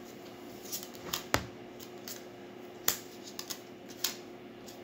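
Neapolitan playing cards being handled and laid on a tabletop: several light snaps and taps at irregular intervals.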